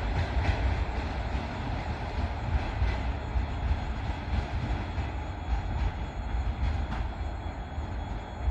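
Double-deck passenger train pulling out of a station: a steady low rumble of the rolling coaches with a few faint wheel clicks, and a faint thin high squeal from the running gear.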